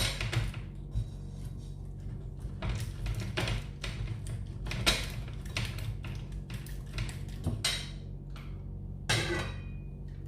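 Hard cheese being grated on a metal grater: a series of short, irregular scraping strokes.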